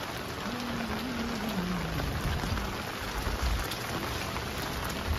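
Steady rain falling and pattering on surfaces, with a faint low tone that sinks in pitch during the first couple of seconds.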